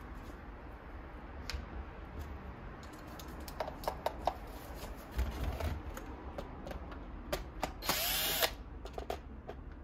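Porter-Cable 20V cordless drill/driver backing a screw out of the keyboard's plastic base. It runs once for about half a second, spinning up and then stopping, after a few light clicks.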